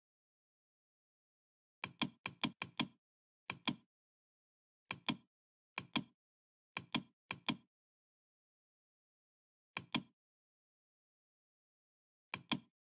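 Computer mouse button clicking about ten times at irregular intervals, each click a sharp press-and-release pair, with a quick flurry of three around two seconds in and silence between clicks.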